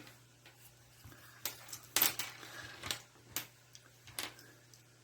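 Small plastic parts of an LED tyre valve-stem cap light clicking and tapping as it is taken apart by hand: about half a dozen light, irregular clicks.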